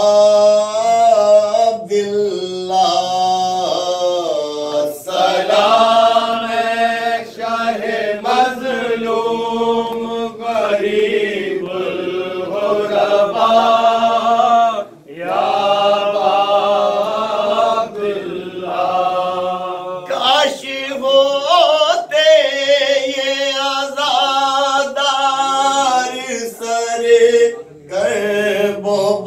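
Men chanting an Urdu salam of mourning without instruments, in a slow, drawn-out melody. A lead voice sings and others join in unison, with a short break between lines about halfway through.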